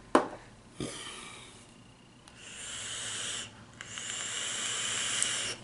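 Long drags on a box-mod e-cigarette: airy hissing draws with a faint whistle, a short one about a second in, then two longer ones, the last ending shortly before the end.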